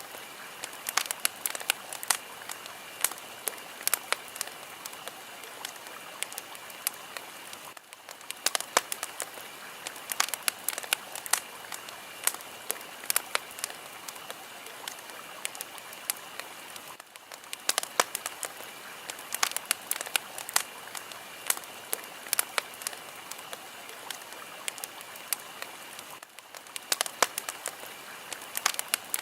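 Fire crackling: a steady hiss with many sharp pops and snaps coming irregularly, dipping briefly about every nine seconds.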